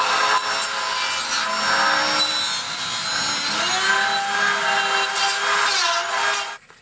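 Dremel rotary tool with a cutoff wheel cutting into a rusted exhaust flange nut and bolt, throwing sparks: a steady grinding hiss over a motor whine. The whine steps up in pitch about three and a half seconds in, and the tool stops near the end.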